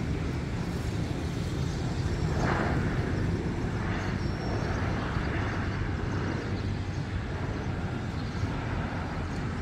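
Airbus A321 jet airliner landing, heard from a distance: a steady low jet rumble with a broader roar that swells in the middle and eases off toward the end.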